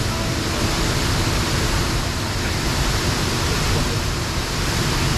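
Waterfall pouring into its plunge pool: a steady, even rushing noise.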